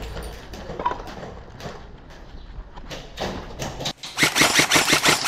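Scattered crunching steps over debris, then near the end a rapid burst of airsoft gun fire on full auto, about ten shots a second.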